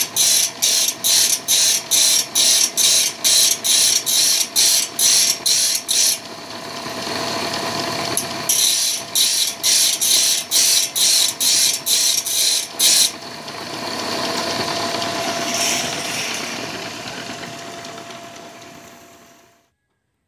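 Belt-driven abrasive grinding wheel sharpening a sawmill band saw blade tooth by tooth: rhythmic rasping strokes about three a second, broken by stretches of steadier grinding, over a steady motor hum. The sound cuts off suddenly near the end.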